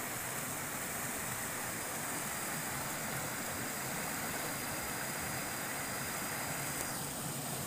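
River water rushing steadily over rocks in small rapids and cascades.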